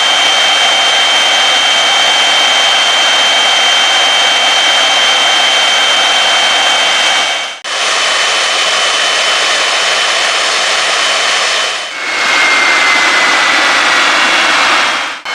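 GE LM2500 aeroderivative gas turbine running at steady speed: a loud rush of air through the intake with a steady high-pitched whine on top. The sound breaks off briefly twice.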